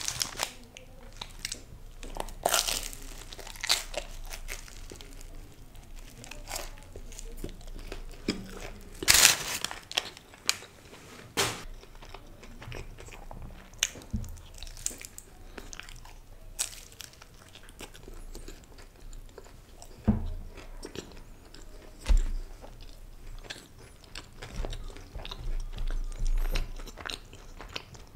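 Close-miked biting and chewing of a crispy-baked chicken wrap: sharp crunches of the toasted shell at the bites, the loudest about nine seconds in, with quieter chewing between.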